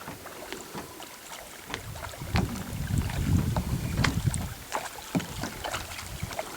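A kayak being paddled on a lake, with short paddle splashes and knocks scattered throughout. Wind rumbles on the microphone from about two seconds in until past the middle.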